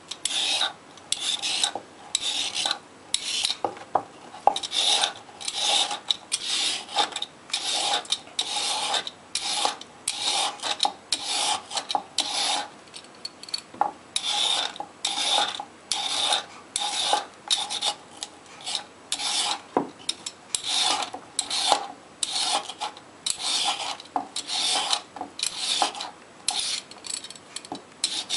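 Y-shaped vegetable peeler scraping down a raw carrot in repeated strokes, each a short rasping scrape, about one to two a second with brief gaps between them.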